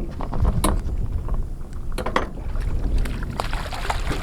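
Steady low rumble on a small boat with scattered sharp knocks and splashes, as a softshell turtle caught on a jug line is handled.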